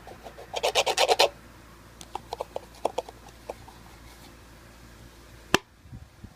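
Slime being mixed and handled, giving a quick run of sticky crackling pops about a second in, then scattered single pops and one sharp click near the end.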